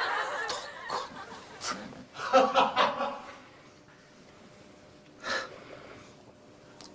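Laughter, loudest in a run of bursts about two to three seconds in, then dying away, with one short burst near the end.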